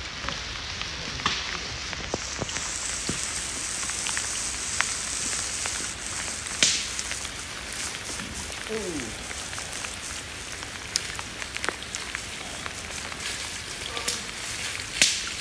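Steady rain falling through woodland: an even hiss with scattered louder drops and drips, a couple of them sharper about seven seconds in and near the end.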